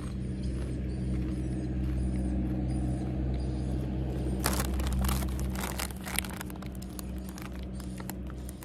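Chip packet crinkling and rustling as a hand reaches in for more corn chips, starting about halfway through, over a steady low hum.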